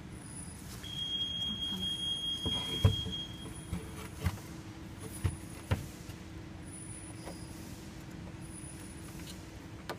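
A steady high electronic beep lasting about two and a half seconds, then a handful of knocks and clunks as a circuit board is handled and fitted into a metal equipment case, the sharpest about three seconds in. A faint low hum carries on under the knocks.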